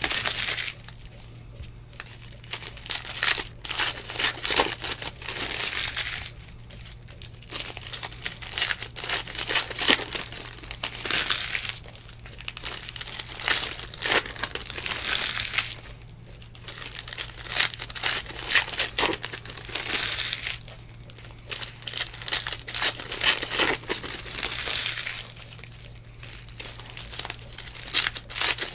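Foil trading-card pack wrappers crinkling and tearing open by hand, in spells a few seconds apart. A steady low hum lies underneath.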